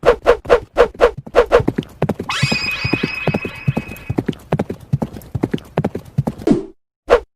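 Horse hooves clip-clopping at a trot, about four steps a second. A horse whinny sounds over the hoofbeats from about two to four seconds in, and the hoofbeats stop near the end with one last step.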